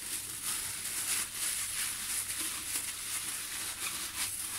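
Thin plastic bag crinkling and a bamboo sushi mat rubbing as hands roll and press a sushi roll, an irregular scratchy rustle.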